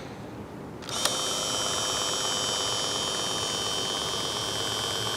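Ryobi 18V cordless power caulking gun's electric motor running at full speed, a steady high whine starting about a second in and holding even as it drives the caulk out fast.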